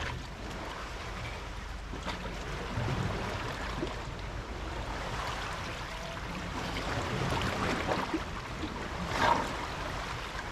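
Seawater lapping and trickling against a rocky shore, with a low, uneven rumble of wind on the microphone and a few light knocks.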